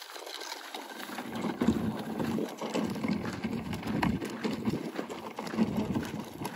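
Footsteps crunching on a gravel path while walking, an uneven run of scuffs and knocks.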